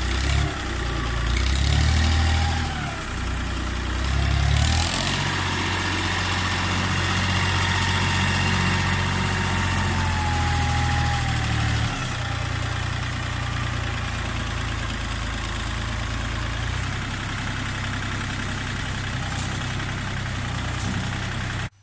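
Ford 1710 compact tractor's three-cylinder diesel engine running under load as the front loader works, rising and falling in loudness, with a faint whine that rises twice early on and holds steady until about eleven seconds in.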